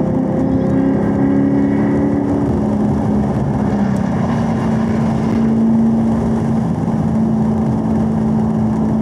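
Chevrolet Camaro's engine running steadily at around 4,000 rpm, heard from inside the cabin over road and wind noise. Partway through it shifts from third to fourth gear and the engine note settles a little lower.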